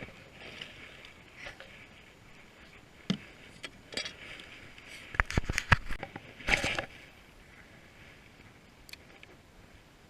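Several sharp knocks and clatters, most of them bunched together about five to six seconds in, with a short rustling burst just after, over a faint steady hiss.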